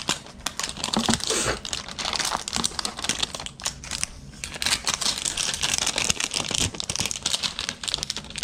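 Packaging of a football card hanger box being crinkled and torn open by hand: a dense, irregular run of small clicks over rustling noise.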